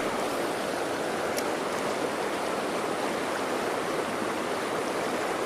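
Fast-flowing stream rapids rushing steadily.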